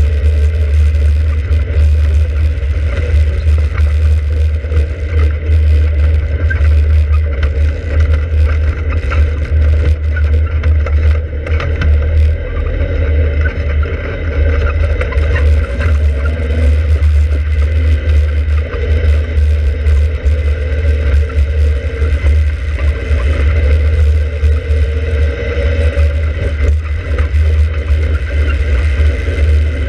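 Open-cockpit sports car driving along, its engine note slowly rising and falling, under heavy wind rumble on the microphone.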